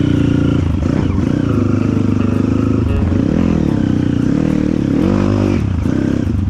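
Dirt bike engine running under load, its pitch rising and falling a few times as the throttle is worked.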